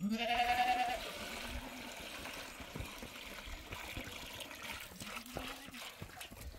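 Water pouring and trickling into a basin on the ground as a steady splashing hiss, after a short bleat in the first second.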